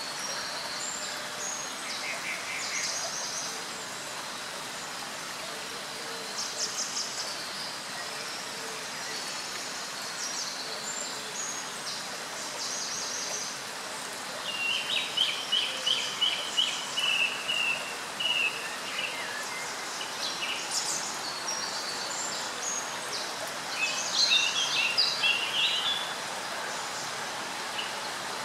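Small songbirds singing and calling over a steady rushing noise of flowing water. A rapid high trill comes about halfway through, and another burst of song near the end.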